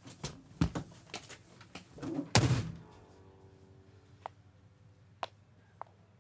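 Door of a London black cab thudding open and slamming shut, the slam about two and a half seconds in, followed by a few scattered clicks of high heels on the ground.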